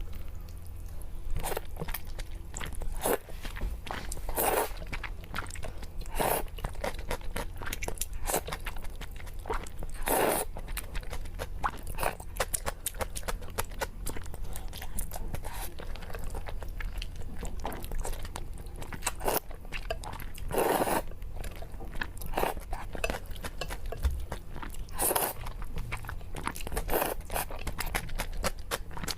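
A person eating noodles close to the microphone: steady wet chewing and mouth clicks, with a few louder, longer bursts of eating noise every several seconds.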